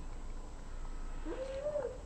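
Young baby cooing: one short coo a little past halfway through that rises, holds and then falls.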